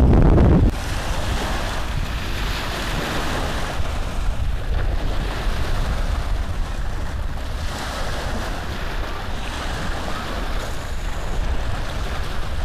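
Rubbing and rustling of the cross-stitch fabric and the hands handling it close to the microphone, a rough rushing noise with a low rumble. A louder rub stops just under a second in.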